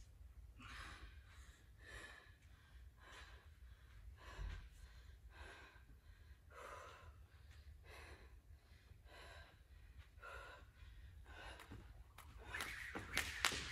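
A woman breathing hard in quick, heavy breaths after a set of deadlifts. About twelve seconds in, a jump rope starts clicking against the floor at a fast, even rhythm as she begins double-unders.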